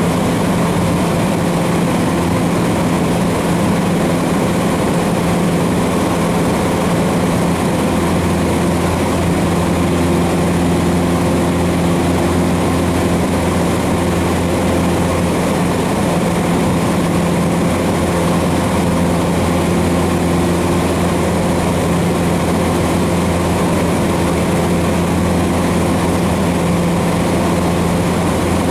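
Cessna 150's Continental O-200 four-cylinder engine and propeller running steadily in flight, heard from inside the cabin as a loud, even drone.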